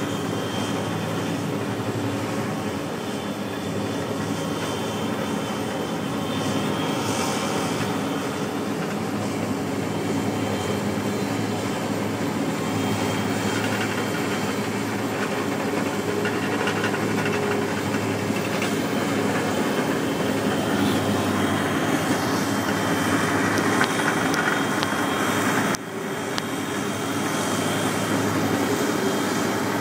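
Fendt tractor's diesel engine working steadily under load while powering a stone crusher, with the grinding noise of stone being crushed on the track. The sound slowly grows louder, and drops out briefly near the end.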